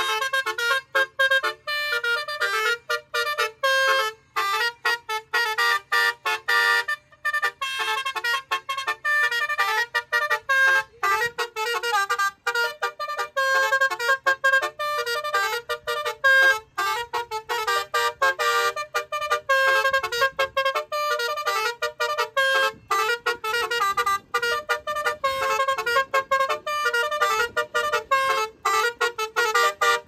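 Basuri multi-tone musical car horn playing a fast melody of short, clipped notes with many quick breaks between them.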